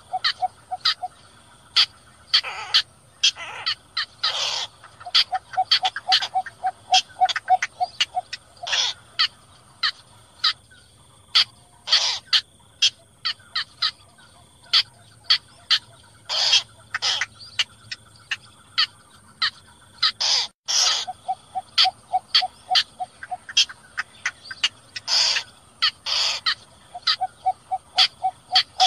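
Small bitterns (cò lép and cò lửa) calling, the lure sound used for night netting. Short sharp calls alternate with runs of quick, evenly spaced notes, about four or five a second, repeating throughout over a steady high hiss.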